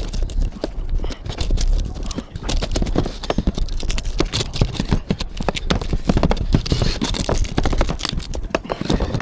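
Irregular knocks, clicks and scrapes of conservatory roof parts being handled and worked loose, going on without a break.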